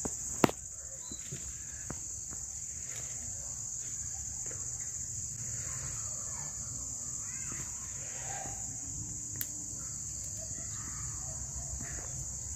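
Steady high-pitched chorus of insects, with a sharp click about half a second in and a fainter click about nine seconds in.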